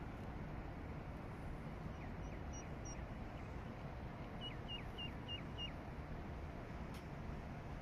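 A small bird calling in short, falling chirps: a few faint ones about two seconds in, then five in quick, even succession around the middle. Under it runs a steady low outdoor rumble of city air and wind, with a single click near the end.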